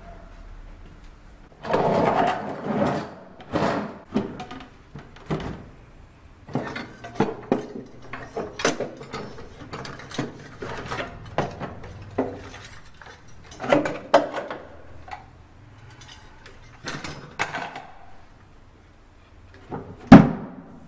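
Old wooden chest being handled: scrapes, knocks and clatter as objects inside are moved about and taken out, then a loud wooden thump near the end as the lid shuts.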